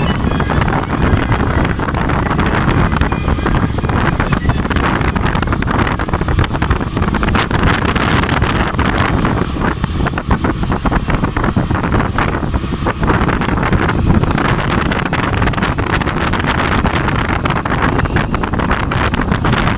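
Steady wind rushing over the microphone of a camera carried on a moving vehicle, with the vehicle's running and road noise underneath.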